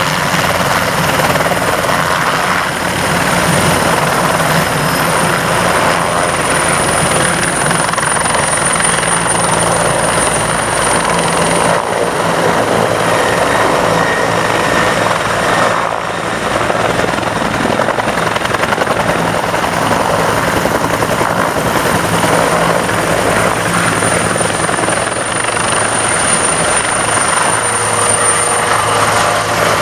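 A line of military helicopters flying past low: small turbine trainer helicopters, a UH-1, an AH-1S Cobra, an AH-64D Apache and a UH-60JA Black Hawk. Their rotors beat and their turbines give a high, nearly steady whine that drifts a little in pitch as they pass.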